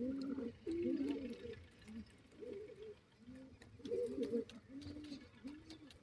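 Grey francolins giving soft, low call notes while foraging: a run of short arched notes, about one or two a second, with a few faint clicks.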